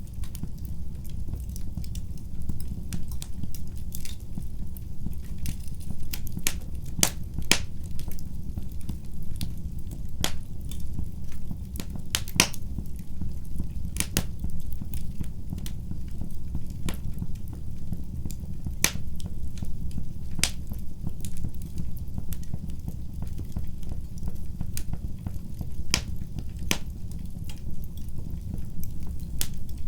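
Wood fire burning in a fireplace: a steady low rumble of the flames with irregular sharp crackles and pops from the burning logs, a few of them louder.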